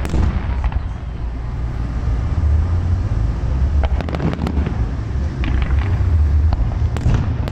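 Aerial fireworks display: a steady low rumble of shell bursts, with sharp cracking bangs about four seconds in, again a little later and near the end.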